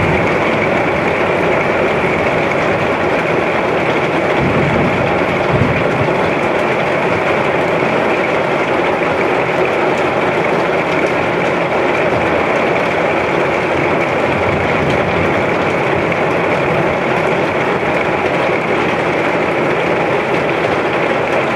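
Heavy storm rain pouring steadily, an even hiss with no let-up.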